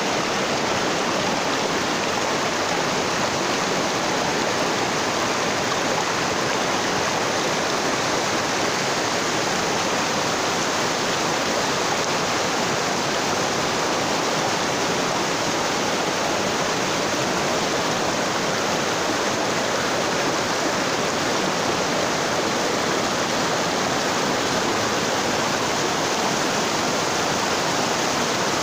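Mountain stream rushing over a rocky bed: a steady, unbroken rush of water.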